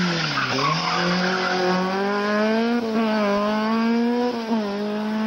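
Rally car's engine pulling hard at high revs. The pitch dips briefly about half a second in as the driver lifts or shifts, then holds high with two more short lifts near three and four and a half seconds in.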